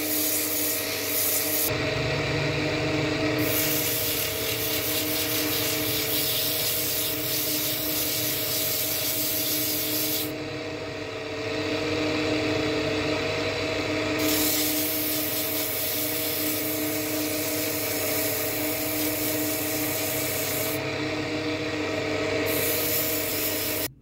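Wood lathe running with a steady motor hum, under a continuous rubbing hiss of the spinning wooden workpiece being worked. The hiss thins out briefly a few times.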